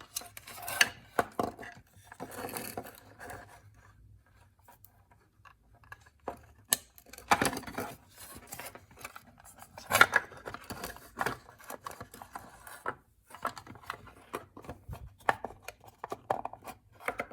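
Small parts of a laser park assist module being handled and fitted back together by hand: scattered clicks, taps and rubbing, with sharper knocks about seven and ten seconds in.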